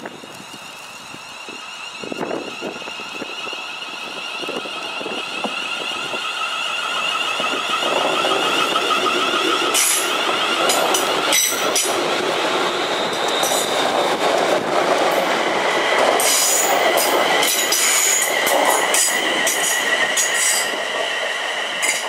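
ScotRail Class 380 (Siemens Desiro) electric multiple unit passing, its traction-motor whine holding several steady tones and growing louder over the first several seconds. Wheel squeal and rail clicks join about halfway through as it takes the curve.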